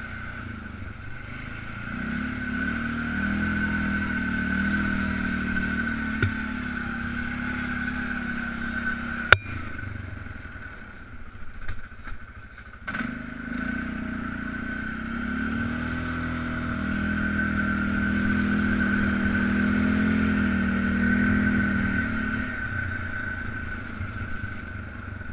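Polaris Sportsman 500 ATV's single-cylinder four-stroke engine running as it rides, pulling harder and easing off with the throttle. There is a sharp knock about nine seconds in, then the engine drops low for a few seconds before picking up again.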